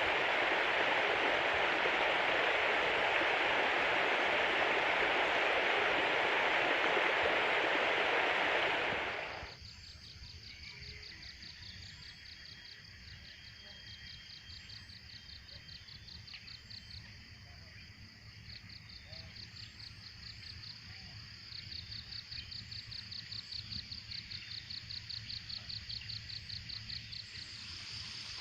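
A steady, loud rushing noise stops abruptly about nine and a half seconds in, giving way to insects trilling in rapid high pulses with faint bird chirps above. The trilling grows louder and more pulsed near the end.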